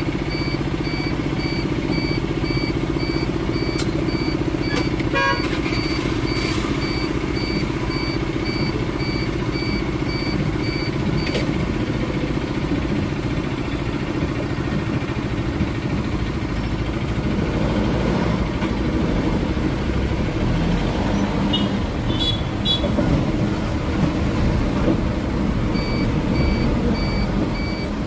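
Ambulance cabin noise while driving slowly in town traffic: a steady engine and road rumble, with an electronic beep repeating evenly through the first ten seconds or so and again near the end. Short horn toots from nearby traffic come about five seconds in and again about twenty-two seconds in.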